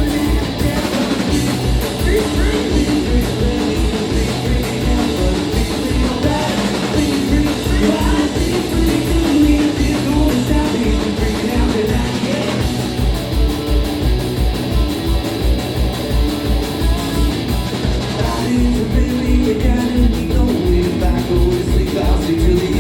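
Punk rock band playing live: electric guitar, bass and drums at a fast, steady beat, with singing. The drums briefly drop out about twelve seconds in.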